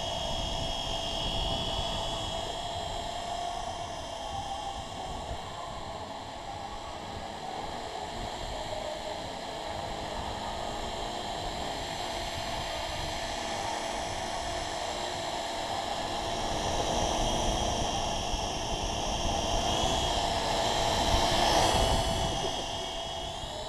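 Small electric quadcopter's propellers buzzing steadily in hover, a whining hum with several steady tones. It grows louder near the end as the quadcopter comes down close overhead.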